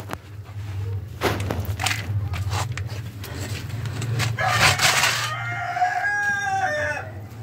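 Grain feed rattling into a plastic feed bowl with a short rush about four and a half seconds in, after a few light knocks. Near the end a rooster crows once.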